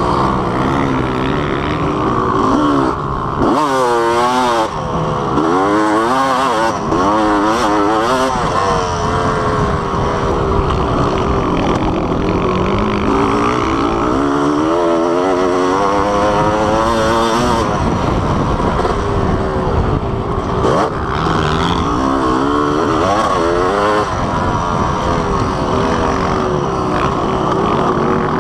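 Motocross dirt bike engine heard from on the bike, revving up and dropping back again and again as the rider opens and closes the throttle through the corners and straights.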